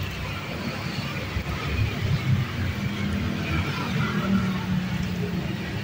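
Hot oil sizzling in a wok as peanut crackers fry and fresh batter hits the oil, over a steady low rumble.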